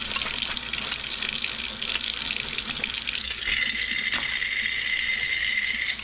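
Kitchen faucet running steadily into a sink as glass canning jars are rinsed and scrubbed under the stream. A steady high tone joins the water noise a little past halfway.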